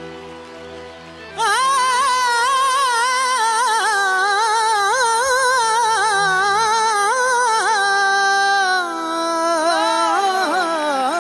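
A man singing a Hindi film song solo into a stage microphone, with wavering, ornamented runs over steady held accompaniment notes. His voice comes in loudly about a second and a half in, after a quieter stretch of accompaniment alone.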